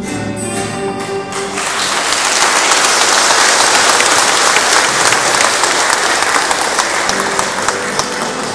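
Congregational singing breaks off about a second and a half in, and the congregation claps in loud, sustained applause. Music starts up again near the end.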